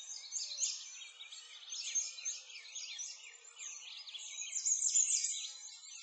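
A chorus of many small birds chirping and twittering together, with quick, high chirps overlapping one another.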